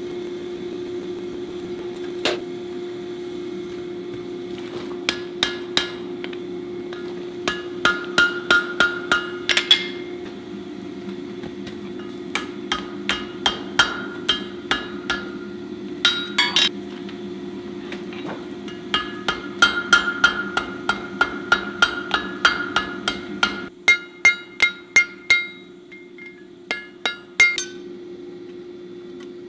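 Hand hammer striking hot steel on an anvil to finish a forge weld, in quick runs of blows about four a second with a bright ring after each, and short pauses between runs. A steady hum runs underneath and quietens about three quarters of the way through.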